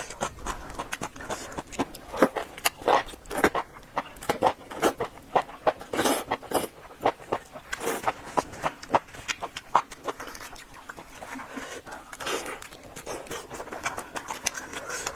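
Close-miked chewing and mouth sounds of a person eating: a quick, irregular run of wet smacks and crunches, several a second.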